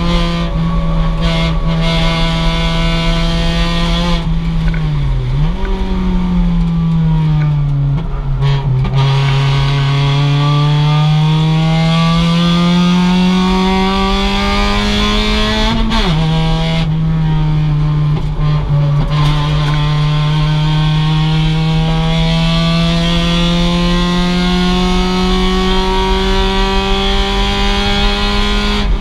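2006 Mazda MX-5's stock four-cylinder engine at race pace. Its pitch dips and jumps back at a gear change about five seconds in, then falls as it slows for a corner. It climbs steadily under hard acceleration to an upshift about sixteen seconds in, then pulls and rises again.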